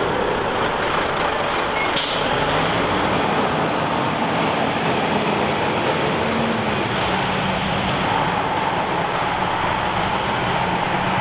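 Scania fire engine's diesel engine running as the truck pulls away and drives past, with a short hiss about two seconds in.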